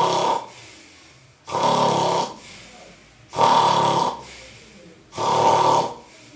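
A man snoring loudly: separate snores of under a second each, coming regularly about every two seconds.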